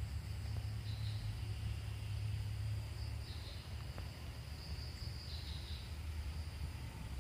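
Insects chirping in a steady high-pitched band that swells in a few louder stretches, over a steady low rumble.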